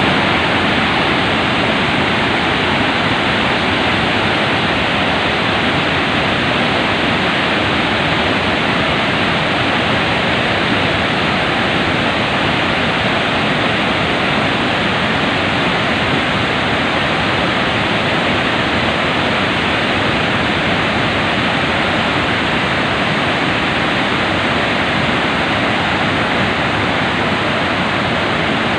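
Vazhachal Falls on the Chalakudy River: a waterfall's water rushing and splashing in a loud, steady, unbroken noise.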